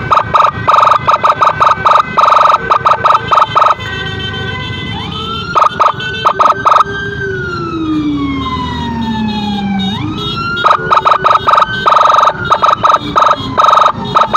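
Emergency vehicle siren sounding loud and close. It gives a rapid pulsing yelp for the first few seconds, then one long wail that rises and slowly falls, and switches back to the rapid pulsing about eleven seconds in.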